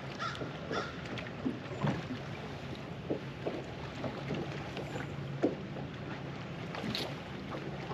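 Water splashing and knocking as a bass is scooped up in a landing net beside the boat, over a steady low hum. A crow caws a few times near the start.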